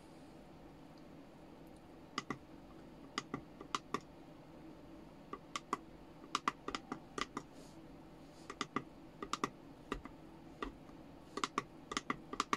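Short, sharp clicks from a finger pressing the buttons of a small digital pocket scale, in irregular runs of several presses starting about two seconds in.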